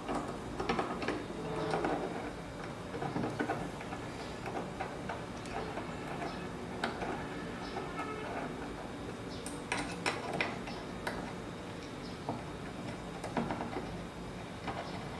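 Scattered light clicks, taps and metallic clinks of small machined metal parts and hand tools being handled and fitted together on a CNC Z-axis assembly, with a quick cluster of taps near the middle.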